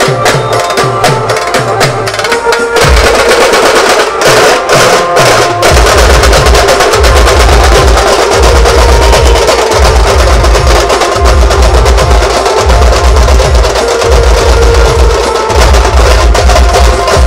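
Loud procession music from a truck-mounted DJ sound system with horn speakers, joined by fast drumming on slung dhol drums; a heavy pulsing bass beat comes in about three seconds in.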